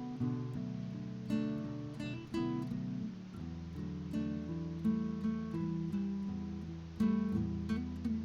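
Background music: strummed acoustic guitar playing a chord progression with a steady pulse.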